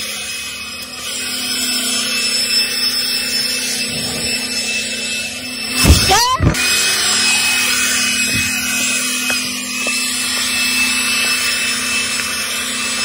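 Cordless electric leaf blower running with a steady whine over a rush of air. About halfway through it briefly gets louder, with a wavering pitch, as the nozzle comes close.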